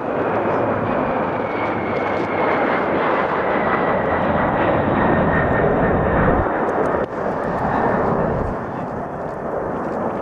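Jet noise from a Boeing 747 Shuttle Carrier Aircraft's four turbofan engines as it flies low past and climbs away, with an engine whine that slowly falls in pitch as the jet recedes.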